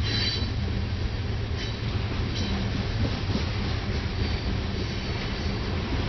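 Loaded freight train's covered hopper cars rolling past: a steady rumble of wheels on rail, with brief high-pitched wheel squeals several times.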